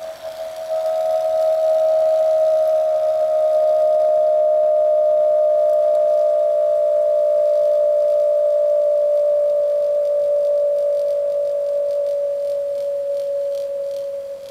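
Handcrafted wooden whistling top spinning at high speed, giving one loud steady whistle with a fainter higher overtone. Its pitch sinks slightly and the whistle fades near the end.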